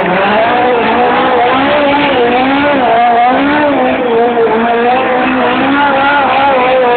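Hot rod's engine held at high revs while its rear tyres spin and squeal through smoky donuts. The pitch wavers up and down continuously as the engine and tyres work.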